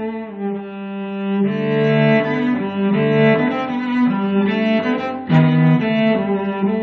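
Instrumental background music: a slow melody of held notes, each lasting about half a second to a second.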